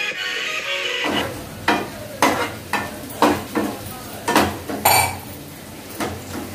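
Spatula stirring and scraping onions and garlic frying in a non-stick frying pan, roughly two strokes a second, over a light sizzle. This follows a second of background music that cuts off.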